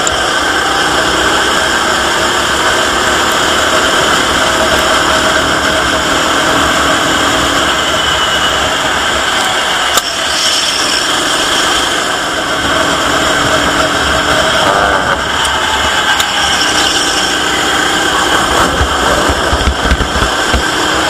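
Go-kart engine running at racing speed through an onboard camera, its pitch rising and falling faintly, under heavy wind rush on the microphone. A brief break about ten seconds in.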